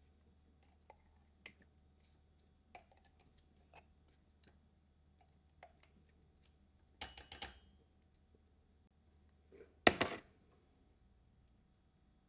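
Soft clicks and scrapes of a plastic measuring spoon and silicone spatula working thick pumpkin purée out of a glass jar and into a stainless steel saucepan. A short cluster of scraping knocks comes about seven seconds in, and one sharp, loud knock near ten seconds.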